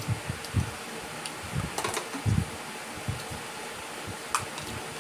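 Scattered light clicks and soft thumps of food, bamboo skewers and plastic cups being handled on a wooden table during eating, over a steady background hiss.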